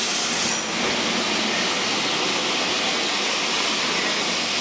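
Lisbon Remodelado tramcar rolling along street rails, a steady, even noise of wheels on track.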